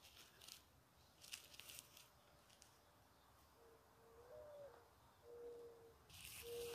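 Faint cooing of a dove: starting about halfway through, one long low coo with a brief rise in pitch, then two shorter steady coos on the same note.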